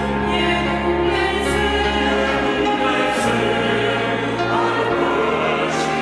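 Church choir singing a Romanian Christmas hymn in sustained chords over instrumental accompaniment, with a low bass line that changes note every second or two.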